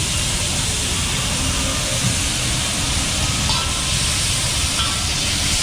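Chicken and onions sizzling with a steady hiss on a large flat iron griddle (tawa), over a steady low rumble.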